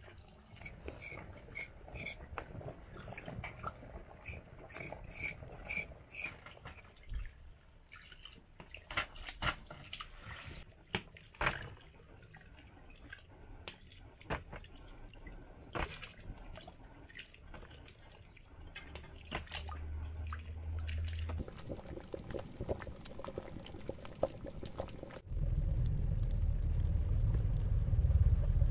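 Potatoes being peeled with a knife over a plastic bowl of water: scraping, sharp clicks and water dripping back into the bowl. Near the end a steady low rumble comes in suddenly and is the loudest sound.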